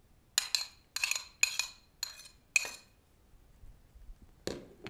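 Metal spoon clinking and scraping against a small plate as chopped chile is pushed off into a bowl, about half a dozen sharp clinks over two seconds. A single knock near the end as the plate is set down on the table.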